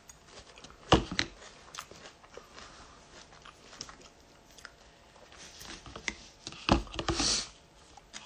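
Eating cereal from a plastic cup with a metal spoon: soft spoon clicks and scrapes and crunchy chewing close to the phone's microphone. Two louder knocks come about a second in and near the end.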